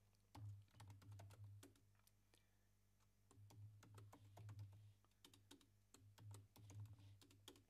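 Computer keyboard typing: faint, irregular key clicks, thinning out briefly around two to three seconds in.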